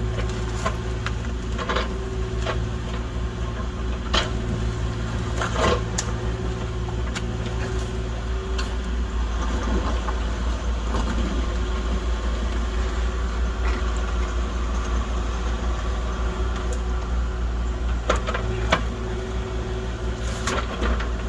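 A compact diesel excavator running under steady load while its hydraulics work the bucket through a soft, rotten log, with occasional sharp knocks.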